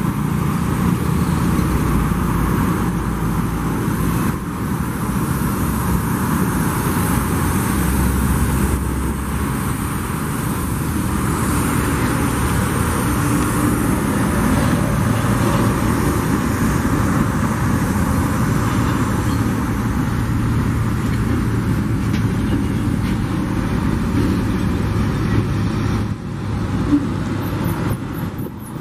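Loaded ore hopper cars rolling past on the track: a steady rumble of steel wheels on rails, with one sharp click near the end.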